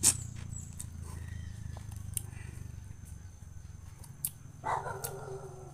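Wet mouth sounds of someone sucking and slurping the pulp of wild passion fruit, with a sharp smack right at the start and a few softer clicks after it, over a steady low hum. A short, steady high-pitched whine comes in during the last second.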